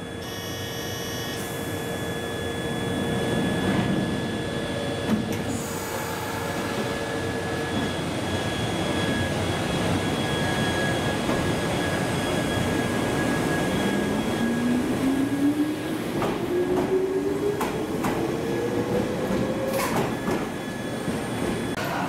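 Toyama Chiho Railway 14760-series electric train pulling out of the station. A steady electrical hum gives way in the second half to a motor whine that rises in pitch as the train gathers speed, with sharp clacks of the wheels near the end.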